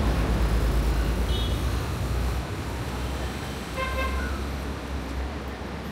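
City street traffic noise with a heavy low rumble, and brief high horn toots about a second and a half in and again about four seconds in.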